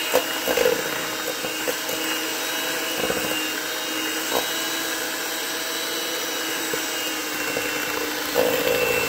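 Electric hand mixer running steadily at one speed, its beaters whisking eggs and sugar in a stainless steel bowl, with a few short knocks along the way.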